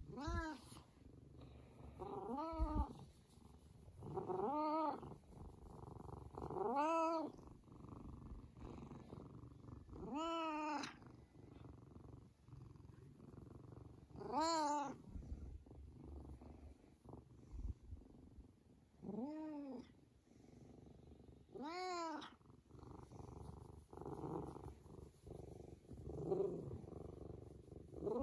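Tabby cat making about eight short meows as it is stroked, each rising and then falling in pitch, a few seconds apart. A low purring rumble runs between the calls.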